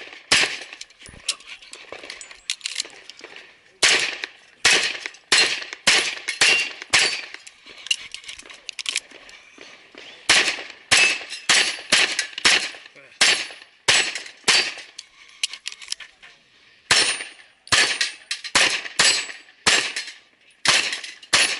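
Strings of 9mm pistol shots from a CZ SP-01, fired rapidly and often in quick pairs, with a couple of short pauses, as during a USPSA stage run.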